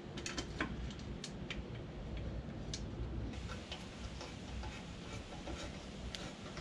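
Light metallic clicks at uneven spacing from a hand ratchet turning a bumper bolt.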